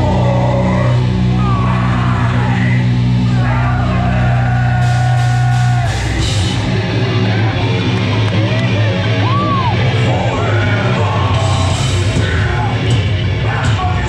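Live hardcore band through a festival PA, heard from the crowd: electric guitars, bass and drums with a shouted lead vocal. About six seconds in, long held low chords give way to a choppier, driving riff.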